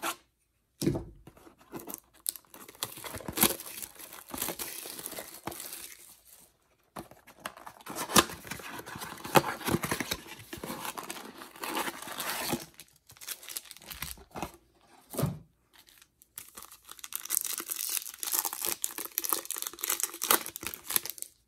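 A cardboard trading-card blaster box being pulled and torn open, then a foil card pack ripped open with crinkling of the wrapper near the end, in irregular bursts of tearing and rustling.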